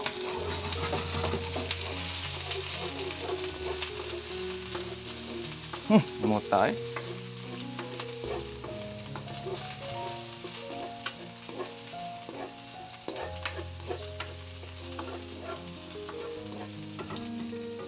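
Garlic, onion and green chili sizzling in hot oil in a stainless-steel wok while a spatula stirs them, scraping and tapping the pan now and then. The sizzle is strongest in the first few seconds and eases off after.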